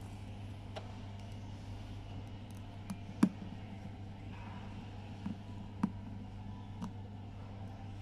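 About six short sharp clicks of a small screwdriver working the caseback screws of a Casio Edifice watch, the loudest about three seconds in, over a steady low hum.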